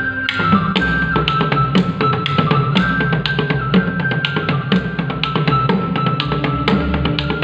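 Fast drumming on a row of hanging laced wooden drums struck with sticks, several strikes a second, with a higher held melody line running over it.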